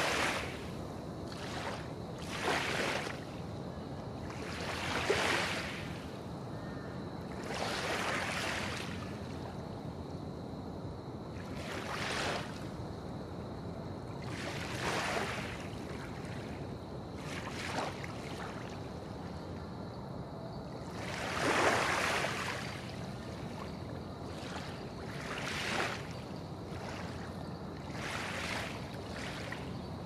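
Small harbour waves lapping gently, with a soft splash every two to four seconds over a steady low background rumble. The largest splash comes about two-thirds of the way through.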